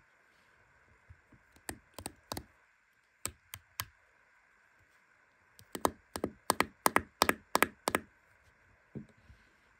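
Hard plastic slime jar and its white lid clicking and tapping as fingers handle it. There are a few scattered sharp clicks, then a quick run of about ten clicks between roughly six and eight seconds in.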